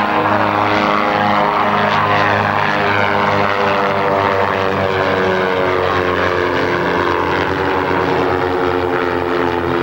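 Cessna O-2 Skymaster's two piston engines, one propeller pulling at the nose and one pushing at the tail, droning steadily as it flies by. The pitch sinks slowly as it passes.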